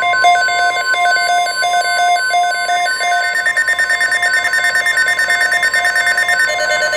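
Weather radio alert tone: a steady tone of about 1050 Hz. Over it runs a rapid chirping pattern of short higher beeps that switch quickly between pitches.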